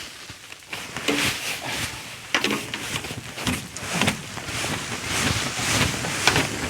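A broom sweeping snow and sleet off a canopy roof: an irregular series of brushing, scraping strokes, roughly one a second.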